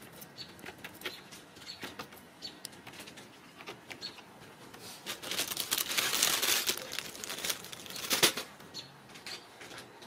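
Kittens scrabbling on a carpeted, sisal-wrapped cat tree: scattered light claw clicks and scratches, with a louder stretch of rustling and scratching about halfway through and a sharp click shortly after.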